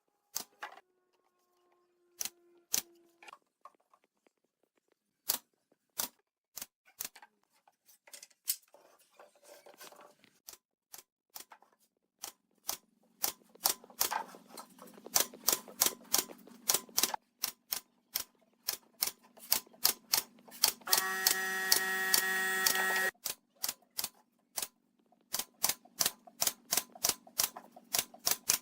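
Sharp wooden knocks and clicks of hand work on timber, sparse at first, then quick and nearly continuous. About three-quarters of the way through, a small motorised tool runs for about two seconds.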